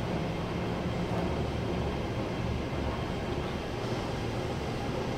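Steady low rumble and hiss of an underground MTR station platform behind closed platform screen doors, with the low end swelling and easing slightly. No train is at the platform.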